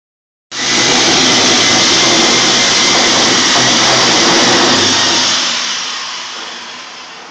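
Rotary hammer drilling into a concrete floor, starting abruptly and running loud and steady for about five seconds. It then winds down as the bit is drawn out of the hole.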